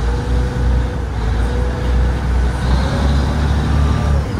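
Boat engine running with a steady, heavy low rumble.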